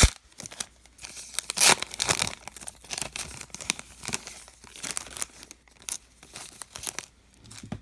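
Baseball card pack wrapper being torn open and peeled off the cards by hand, crinkling and crackling. Loud rips at the start and about two seconds in, then smaller crinkles.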